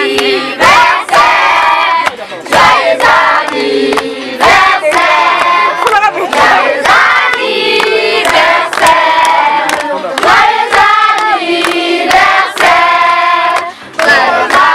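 A group of women and children singing together, with hand claps through the song.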